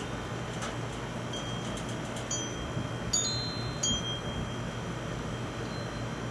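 Metal wind chimes ringing in the breeze: a few high, clear notes struck at irregular moments, most of them bunched around the middle, over a steady low background hiss.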